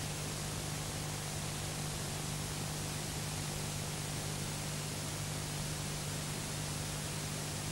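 Steady static hiss with a low electrical hum, unchanging throughout; no commentary or crowd reaction stands out.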